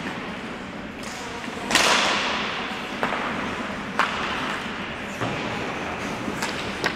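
Ice hockey play in an echoing rink: skate blades scraping the ice and sharp clacks of stick and puck, about three of them in the second half. A loud scraping rush comes about two seconds in and fades quickly.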